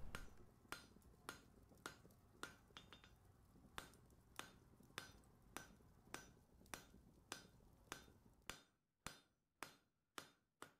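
Faint hammer blows ringing on a blacksmith's anvil at a steady, even pace, a little under two strikes a second.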